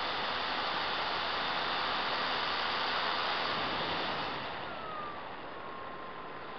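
Steady wind and propeller rush of a radio-controlled Apprentice trainer plane in flight, heard from a camera mounted on the plane. The rush drops a little about four seconds in, and a faint motor whine slides slightly down in pitch and then holds steady.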